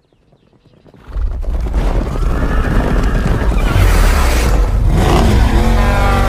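Intro sound effects: a deep rumble that swells in about a second in, with a rushing whoosh over it, then gliding squeals of screeching car tyres near the end.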